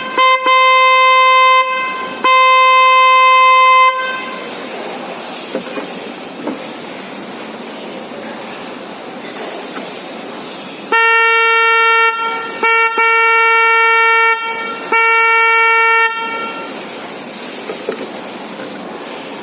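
K85 car horn sounding a steady single-pitched tone in blasts. First comes a short toot and then two long blasts, each about one and a half seconds. After a pause there are four more blasts, one of them brief. A steady rushing noise fills the gaps between blasts.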